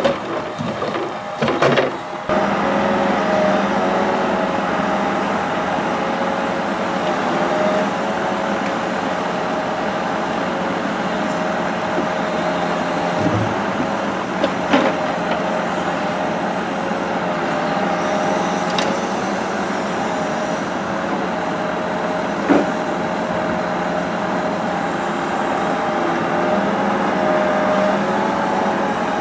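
A log truck's engine runs steadily with raised revs to power its loader crane's hydraulics, giving a constant hum and whine. Over it come a few knocks of logs in the grapple as they are loaded onto the timber trailer.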